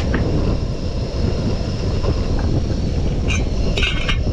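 A steady low rumble throughout, with a metal lid clinking twice as it is set onto a cooking pot near the end.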